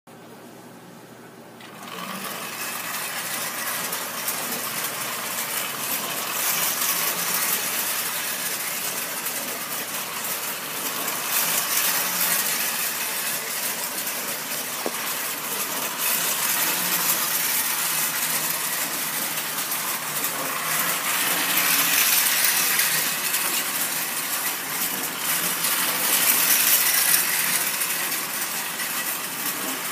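Marx tinplate toy diesel train running on metal three-rail track: a steady metallic clatter and rattle of wheels on the rails with the whir of its motor. It starts about two seconds in and swells and fades several times as the train comes near and goes by.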